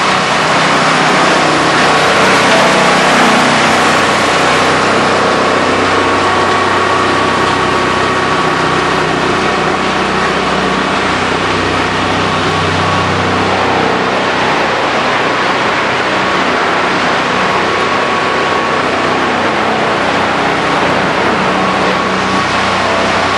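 Rotochopper EC-156 horizontal grinder, driven by a 250-hp electric motor, running and grinding wooden pallets in its fixed-hammer mill. It makes a loud, steady mechanical din with a held whine and shifting crunching noise, slightly busier in the first few seconds.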